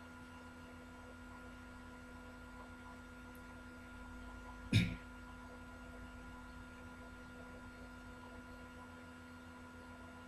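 Faint steady electrical hum with a few thin steady tones, broken once, about five seconds in, by a single short sharp click.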